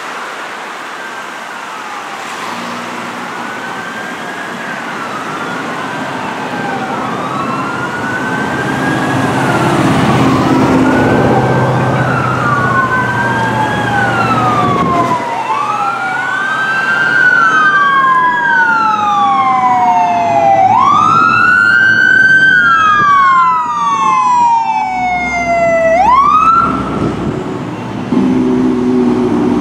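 Sirens of a fire department tiller ladder truck and a battalion chief's vehicle responding code 3. They wail up and down, growing louder as they approach, with two sirens overlapping in the second half. The sirens cut off about 27 seconds in, leaving the low rumble of the truck's engine and traffic.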